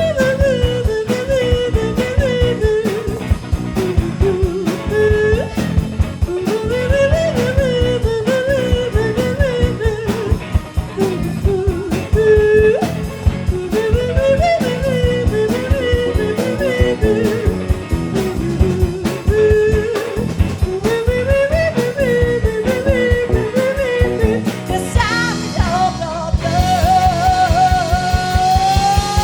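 Live blues band playing: drums, bass and guitar under a bending, wavering lead melody. About 25 seconds in the drums drop out and a single held note slides upward in pitch, a closing flourish at the end of the song.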